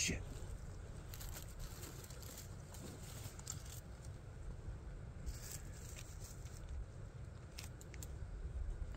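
Soft rustling and scraping of clothing, gloves and a traditional bow with its quiver and arrows being moved, in a few short bouts of faint crackles, over a steady low rumble.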